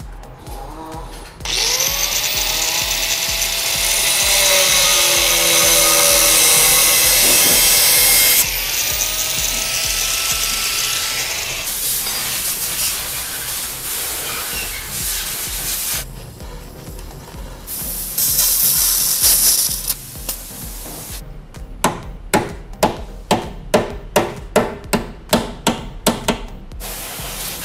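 Power tools at work on a car body. A loud, hissing tool runs for several seconds with its pitch rising and falling. Near the end come about a dozen sharp knocks, roughly two a second.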